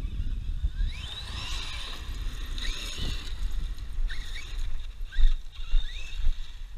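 Brushless electric motor of a Traxxas X-Maxx 8s RC monster truck revving up and down in short bursts, heard as rising and falling whines, over a steady rumble of wind on the microphone.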